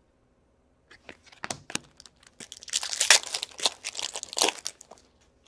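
A foil trading-card pack wrapper being torn open and crinkled: a few sharp crackles, then about two seconds of dense crinkling.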